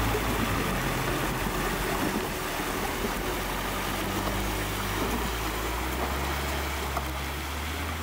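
Ford Ranger Raptor's 2.0-litre bi-turbo diesel engine running steadily at low speed as the pickup wades through a shallow stream, with water splashing and rushing around its tyres.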